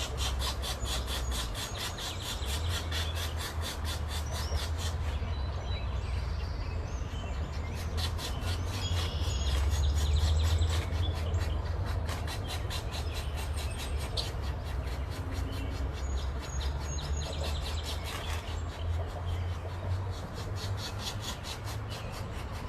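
Pileated woodpecker nestlings begging with rhythmic rasping calls, several a second, pausing twice, over a low rumble.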